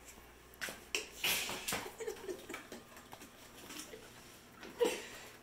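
Knocks and scuffs of a heavy BYD 24 V LiFePO4 battery pack being gripped and tipped over on a wooden pallet covered in cardboard, mostly in the first two seconds, with another sharp knock near the end.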